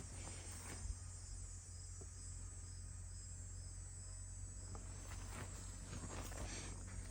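Insects chirring steadily in a high, continuous pulsing trill, with a few faint taps and rustles about two-thirds of the way through.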